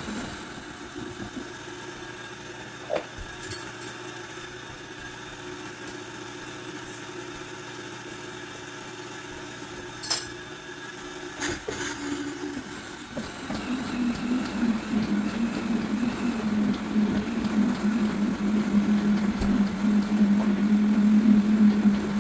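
High-powered countertop blender pureeing potato, onion and garlic for draniki batter. The motor runs low, with a couple of knocks, then about 13 seconds in comes up to a loud, steady hum that holds while the tamper pushes the mash down.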